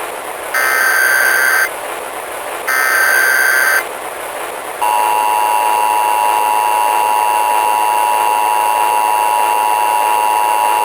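Emergency Alert System broadcast signal over a steady static hiss. First come two short bursts of the SAME header's warbling data tones, about a second apart. Then, about five seconds in, the two-tone EAS attention signal starts and holds steady.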